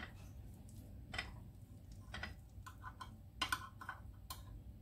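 Faint, irregular light clicks and taps of a spoon and tableware being handled at the table, about eight in all, spread through the middle of the stretch.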